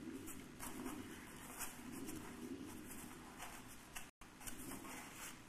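Soft, irregular scratching and rubbing strokes of a hand tool working on a surface, like drawing or brushing. The sound cuts out for an instant about four seconds in.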